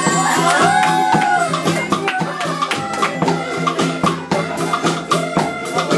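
Music with a quick, steady percussion beat over sustained notes, with a voice or instrument line gliding up and down in pitch near the start.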